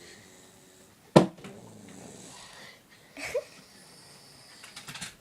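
A sleeping child breathing between snores, with a short noisy breath and a brief rising squeak about three seconds in. A single sharp knock about a second in is the loudest sound.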